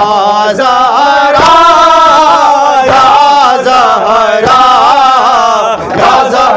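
A Shia nauha chanted by male voices, with long, wavering held notes. Sharp slaps of hands beating chests in matam mark the chant roughly once a second.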